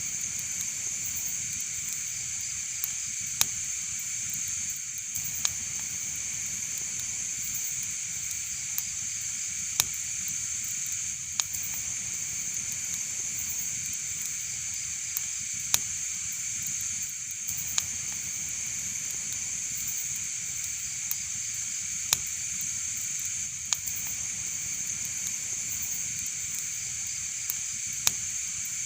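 Wood fire in a fireplace crackling: a steady hiss with sharp, irregular pops every second or few.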